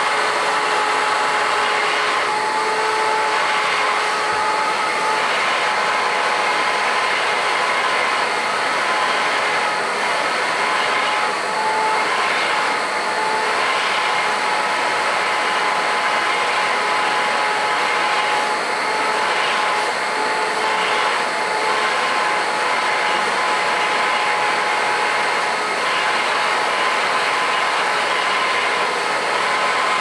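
Vacuum cleaner running with a steady whine and rush of air as its hose nozzle is drawn through a husky's fur; the air noise shifts briefly several times as the nozzle moves over the coat.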